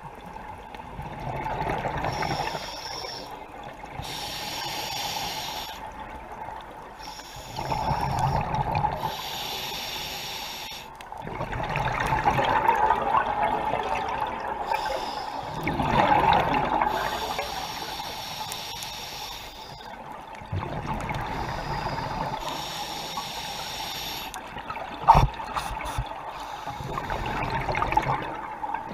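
Open-circuit scuba breathing through a regulator: hissing inhales alternating every few seconds with louder bubbling bursts of exhaled air. A single sharp knock about 25 seconds in.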